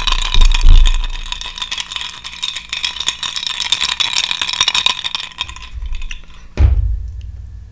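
Ice cubes rattling and clinking against a glass as it is shaken, in a rapid continuous clatter that stops about five and a half seconds in. A single dull thump follows near the end as the glass is set down.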